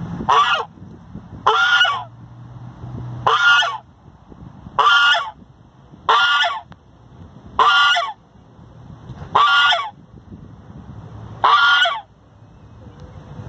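White domestic goose honking repeatedly, eight single loud honks spaced about a second and a half apart.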